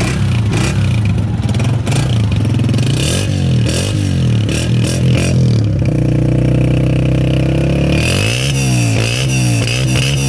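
Honda CG 125's air-cooled single-cylinder four-stroke engine running with the throttle worked: uneven at first, held at higher revs for about two seconds around the middle, then revved up and down several times near the end.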